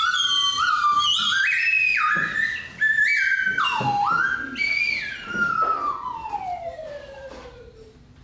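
A high whistle playing a stepped run of notes, some joined by short slides, then one long falling glide that fades away over the last few seconds.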